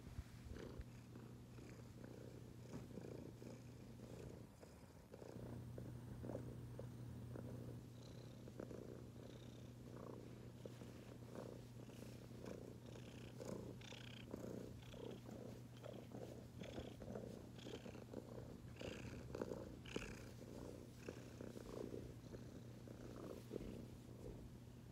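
Domestic cat purring close up: a steady low rumble that stops briefly about four and a half seconds in, then carries on.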